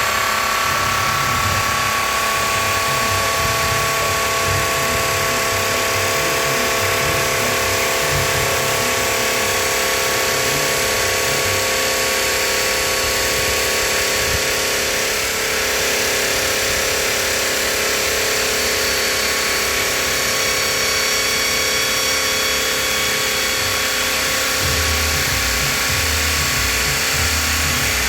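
Diamond blade of a CNC bridge saw cutting quartzite: a steady whine over a constant hiss, running without a break.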